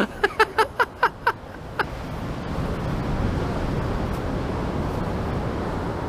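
A child's voice in a quick run of short laughing bursts. About two seconds in, a steady rushing of wind and surf swells up and holds.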